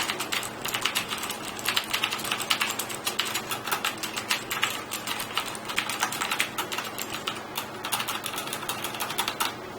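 Typing on a Cooler Master QuickFire TK mechanical keyboard with genuine Cherry MX Blue switches: a quick run of clicky keystrokes, several a second, stopping just before the end.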